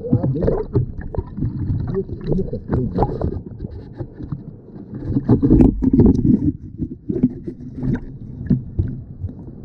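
Muffled water sloshing and bubbling picked up underwater by an action camera in a stream, with scattered irregular knocks and a louder stretch about five seconds in.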